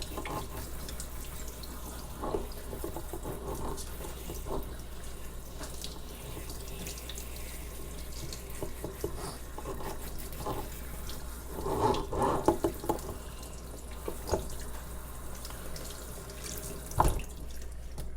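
Tap water running steadily, rinsing the soap off a dog, with a cluster of splashes and knocks about twelve seconds in. A sharp knock comes near the end, and the running water stops soon after.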